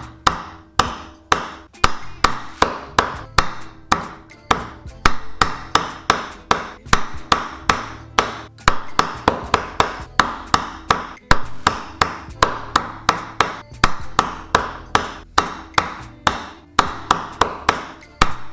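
Large knife chopping grilled chicken breast into small pieces on a wooden cutting board: a steady run of sharp knocks of the blade on the wood, about three a second.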